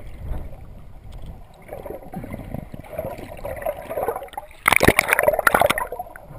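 Underwater sound of churning sea water, then a loud burst of splashing and bubbles about four and a half seconds in that lasts about a second.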